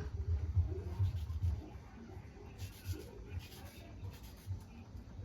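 Knife dicing mango flesh: soft, rapid knocks for the first second and a half, then sparser knocks and faint scraping.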